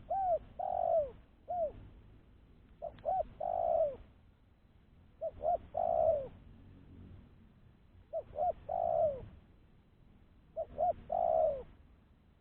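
Spotted dove cooing: five phrases, each two or three short coos followed by one longer coo that falls in pitch, repeated every two to three seconds.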